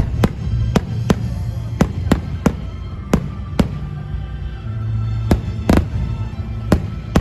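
Aerial fireworks display at its climax: sharp bangs burst in quick, irregular succession, about two a second, over a continuous low rumble. Music plays in the background.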